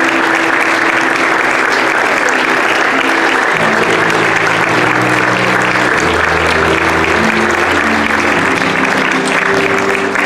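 A church congregation applauding steadily for the newly pronounced couple, over instrumental music of held low notes that change every second or so.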